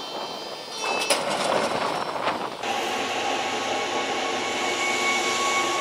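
Steady machinery noise from air-defence vehicles, with a couple of knocks about a second in. Partway through it changes to an even hum carrying a steady high whine, then cuts off suddenly near the end.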